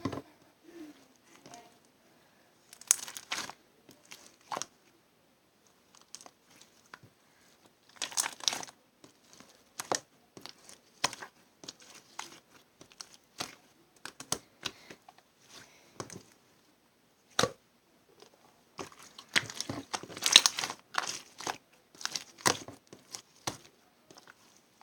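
Irregular crinkling and rustling handling noises with scattered sharp clicks. They come in clusters, the busiest near the start, in the middle and towards the end.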